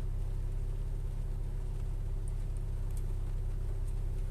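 Hyundai car engine idling steadily in park, heard from inside the cabin as an even low hum.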